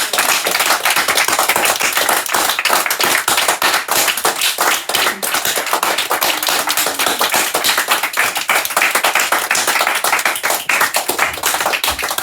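A group of people applauding: a steady, dense patter of hand claps.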